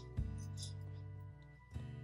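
Soft instrumental background music: sustained notes, with a new note struck about a quarter second in and another near the end.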